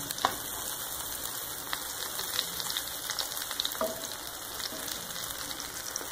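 Egg-and-onion omelette frying in a hot pan: a steady sizzle with scattered small crackles and pops.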